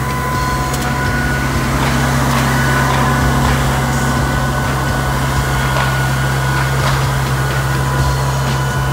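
PowerBoss Armadillo 9X rider sweeper running while it sweeps, a steady low engine hum under a higher steady whine, with scattered ticks.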